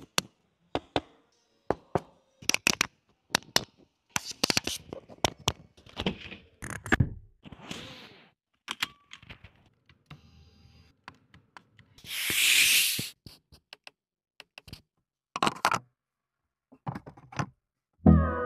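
Clicks, taps and knocks of a BMW i4 M50's buttons, switches and trim being pressed and handled, with some scraping. About twelve seconds in, a loud rushing hiss lasts about a second.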